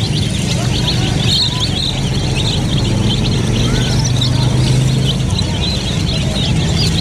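A flock of young chicks peeping nonstop, many short high cheeps overlapping, over a steady low hum.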